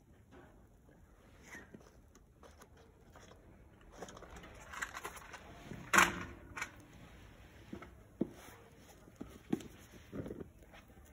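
Shredded paper and wood shavings catching fire in a tin and crackling, with scattered pops building from about four seconds in and one sharp crack about six seconds in.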